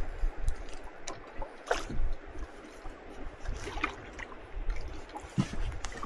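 Water sloshing against a small boat's hull, with scattered irregular splashes and knocks over a low wind rumble on the microphone.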